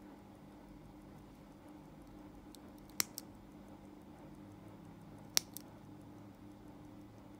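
The pusher of a Seiko 6139 automatic chronograph pressed twice, about two and a half seconds apart. Each press gives a sharp click followed at once by a fainter one as the pusher is pressed and released.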